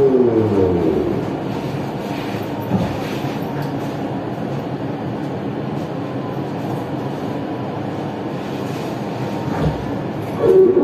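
Siemens VAL 208 NG rubber-tyred metro heard from inside the car: its traction motor whine falls in pitch as the train slows to a near standstill, a steady hum follows while it waits, and the whine starts rising again near the end as the train pulls off.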